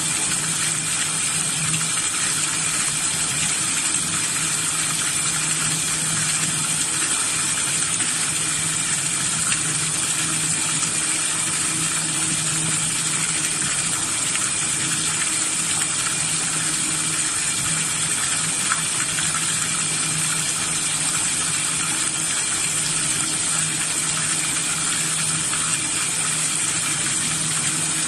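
Steady rush of water splashing from a hose jet into a tub where a basket of shucked scallops is being washed, over a constant low machine hum.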